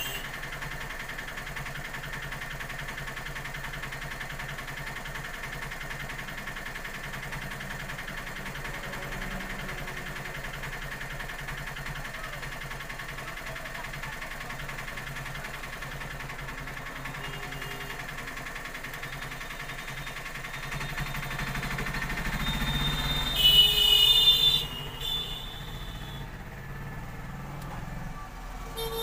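Steady background traffic noise. A vehicle draws near about 21 seconds in, and its horn honks briefly a couple of seconds later, the loudest sound here.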